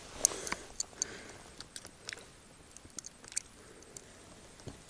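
Light scattered clicks and small taps of a hooked fish and lure being handled as the fish is unhooked. They are a few per second at first and sparser later.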